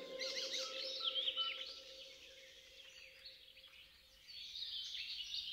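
Birds chirping and twittering in quick, short high calls, busy at first, thinning out in the middle and picking up again near the end. A held low note from the closing music fades away under the first seconds.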